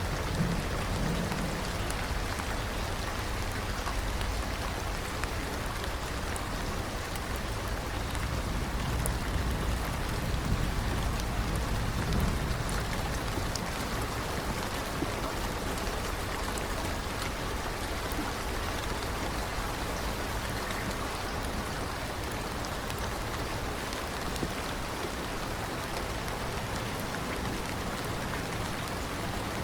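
Steady rain falling, with a low rumble of thunder just after the start and again about twelve seconds in.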